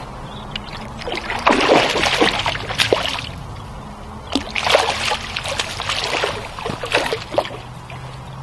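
A small hooked mirror carp splashing at the water's surface as it is drawn into a landing net, in two bouts of splashing: the first about a second in, the second about four seconds in.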